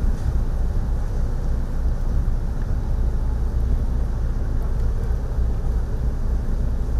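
Steady low rumble of ship engines during berthing, with wind buffeting the microphone.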